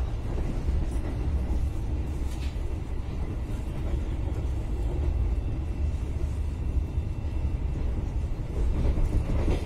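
Argo Sindoro passenger train running along the line, a steady low rumble of the moving carriage with a few faint clicks.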